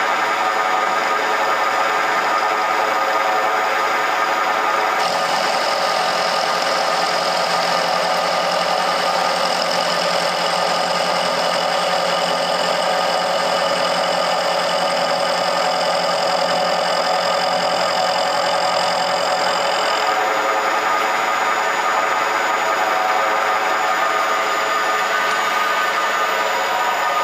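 Milling machine running steadily while a 16 mm HSS roughing end mill cuts a steel plate turned on a rotary table. The cut adds a high whine and a lower hum from about five seconds in until about twenty seconds in, over the machine's steady running noise.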